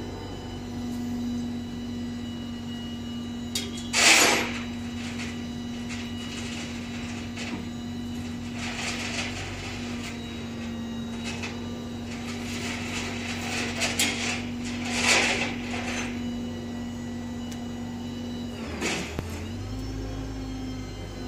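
Flatbed tow truck's engine idling with a steady hum, while sharp metal clanks come from the pickup being tied down on its bed; the loudest is about four seconds in and another comes about fifteen seconds in. Near the end the engine's pitch dips and then rises.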